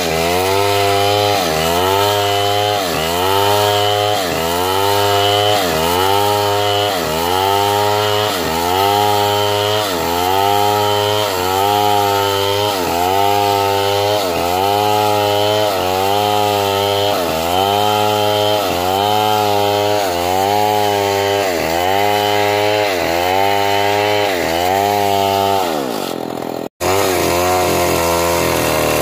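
Stihl chainsaw running under load while ripping a log lengthwise. Its engine note dips and recovers about once a second as the bar is worked through the wood. Near the end it breaks off for a moment, then comes back running.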